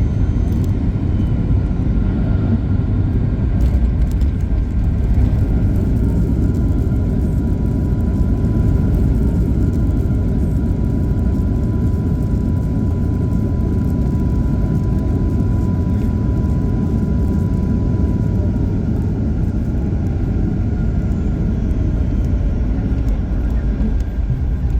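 Cabin noise of a Boeing 737 MAX 8 taxiing after landing: a steady low rumble from the CFM LEAP-1B engines at low thrust and the wheels on the pavement. A thin engine whine comes in after a few seconds, holds steady, then falls in pitch toward the end.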